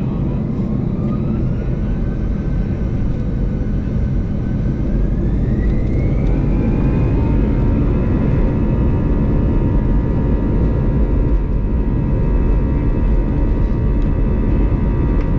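Airbus A320's CFM56 engines spooling up to takeoff thrust, heard from inside the cabin. A whine rises in two steps over about the first seven seconds, then holds steady over a heavy low rumble.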